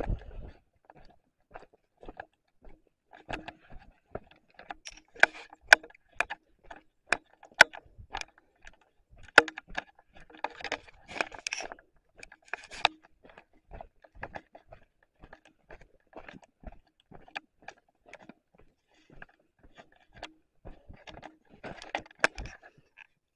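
Footsteps crunching on loose gravel and stones, irregular, with a few sharp clicks of stones knocking together and denser crunching a little before the middle and again near the end.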